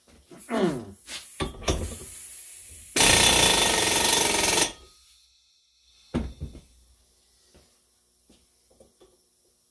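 Pneumatic tool driving a Lisle 34400 exhaust pipe expander into a steel exhaust pipe, running hard in one loud burst of about a second and a half, starting about three seconds in. Shorter handling noises and clatter come before the burst, and there is one knock after it.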